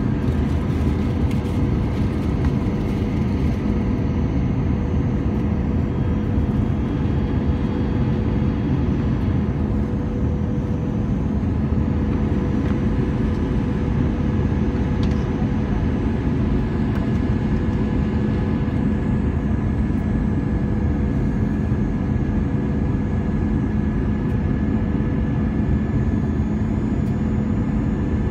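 Airbus A321 cabin noise on descent, heard from a window seat over the wing: a steady rush of airflow and jet engine drone, with a high engine whine that grows stronger about halfway through.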